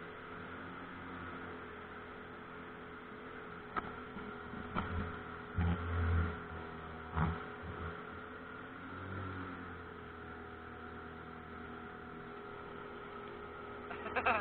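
Pontoon boat's outboard motor running steadily, its pitch dipping briefly about two-thirds of the way in, with a few dull low thumps in the middle stretch.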